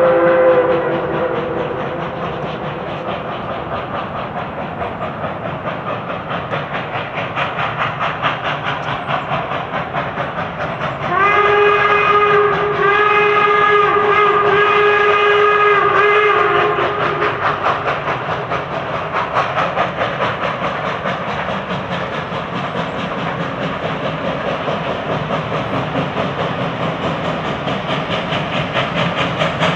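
Steam locomotives Reading & Northern 425 and CNJ 113, double-heading, working hard as they pull away, with steady, rapid chuffing from their stacks. A chime steam whistle ends a blast about a second in, and a lower-pitched chime whistle sounds three blasts between about 11 and 17 seconds in.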